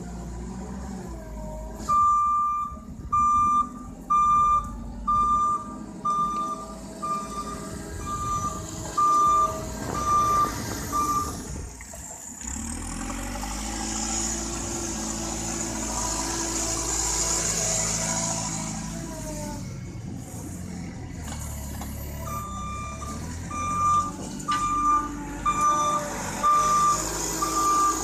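JCB 4CX backhoe loader's diesel engine running while its reversing alarm beeps steadily, about once a second. The beeping stops a little before halfway, the engine revs up for several seconds with a hiss, and the beeping starts again near the end.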